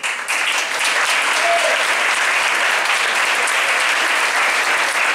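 An audience applauding, breaking into full, steady applause just after the start.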